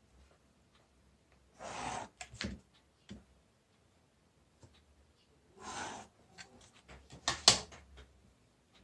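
Ballpoint pen drawn twice along a plastic set-square ruler on paper: two short faint scratching strokes, about four seconds apart. Light clicks and taps of the plastic ruler being set down and moved on the paper come between and after the strokes, the sharpest near the end.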